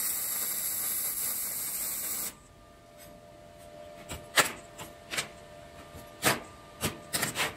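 MIG welding arc crackling steadily as it welds a corner of the steel flat-bar door lip, stopping about two seconds in. Then several sharp metal clicks and clanks as locking pliers clamped on the steel frame are handled.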